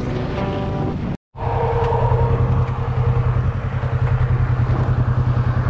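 Background music for about the first second, cut off abruptly. Then a motorcycle engine running at low revs, with a steady pulsing throb, as the bike rolls slowly onto gravel.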